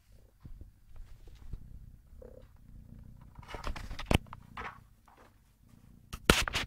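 Kitten purring with a low, steady rumble, broken by rustling and two sharp knocks, one about four seconds in and a louder one near the end.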